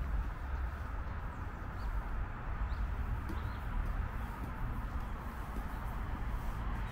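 Outdoor park ambience: a steady low rumble and hiss, with a few faint, short bird chirps in the first half.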